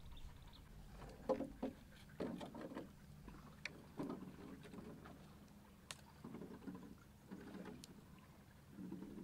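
Wooden boat being poled through still water: irregular soft splashes and knocks from the pole and the water against the wooden hull.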